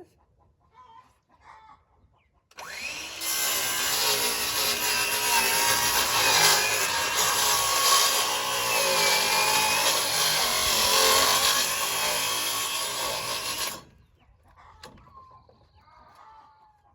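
Electric power saw cutting wood. The motor spins up about two and a half seconds in and runs under load for about eleven seconds, its pitch wavering, then cuts off suddenly.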